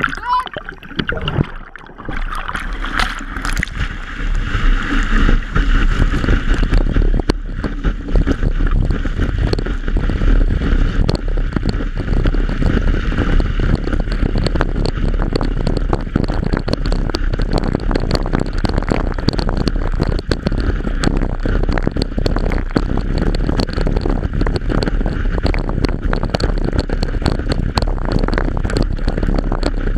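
Water gurgling and splashing over a half-submerged action camera, then, from about two seconds in, steady rushing water and spray against the camera with wind buffeting the microphone as the wakeboarder is towed behind the boat, full of fine crackles.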